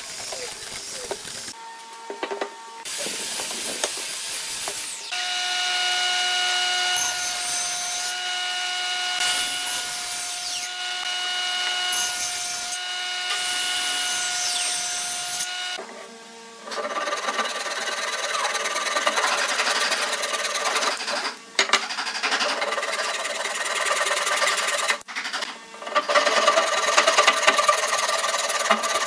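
Woodworking tools in turn. A hollow-chisel mortiser cuts into pine at the start. A table saw then runs with a steady whine for about ten seconds. Through the second half, a hand saw rasps back and forth through a pine block.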